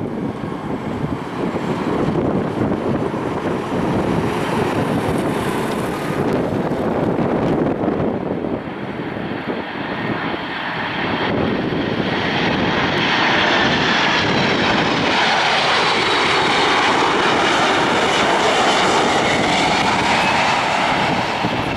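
Jet engines of a landing Boeing 747-400 on final approach, a steady rushing noise that grows louder about twelve seconds in, where a high whine joins it.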